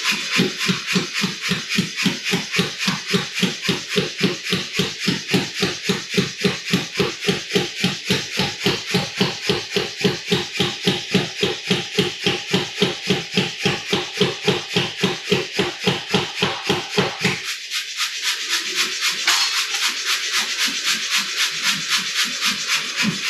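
Power hammer striking hot steel in a fast, steady rhythm of about four blows a second; the blows stop about 17 seconds in and start again right at the end. A steady hiss runs underneath throughout.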